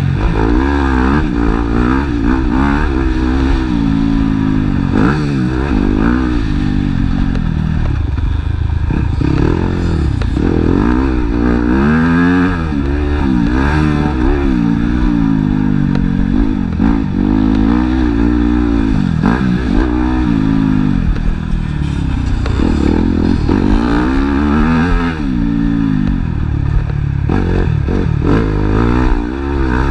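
Motocross bike engine revving up and down again and again as the bike is ridden hard around a dirt track, climbing in pitch on each run and dropping off between, heard on board at close range.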